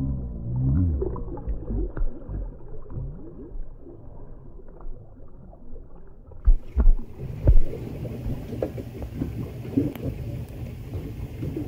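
Humpback whale call heard underwater: a short low moan about half a second in, rising then falling, followed by faint clicks and crackles. About six seconds in the sound turns suddenly brighter and a few heavy low thumps follow.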